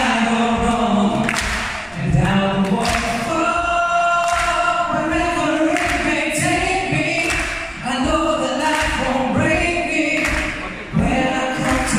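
A man singing live into a microphone, long held notes in phrases broken by brief pauses about two, eight and eleven seconds in.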